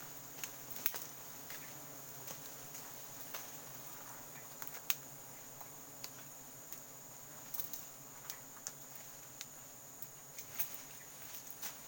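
Steady high-pitched insect chorus from the forest, with scattered sharp snaps, clicks and rustles of twigs and leaves as someone shifts about among the branches.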